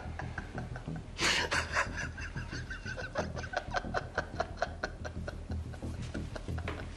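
A man laughing out loud in quick repeated bursts, starting with a strong outburst about a second in, over quiet background music.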